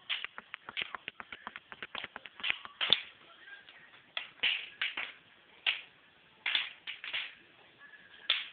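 Wood fire crackling in a fireplace: irregular sharp pops and snaps, some in quick clusters, the loudest about three seconds in.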